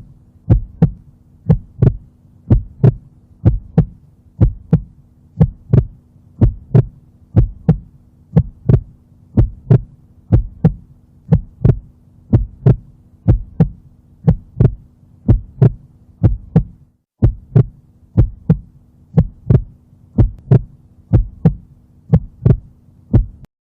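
A heartbeat heard through a stethoscope: steady paired lub-dub beats about once a second over a faint steady hum. It drops out briefly about two-thirds of the way through and stops just before the end.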